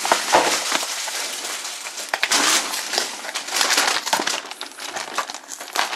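A small cardboard Jolly Rancher Gummies candy box being handled and torn open by hand: crackling and crinkling of cardboard and packaging, louder in a few spells.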